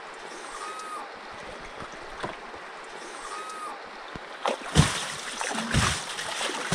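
Running water trickling steadily, with two heavier splashes about five and six seconds in. A faint short whistled bird call sounds twice in the first half.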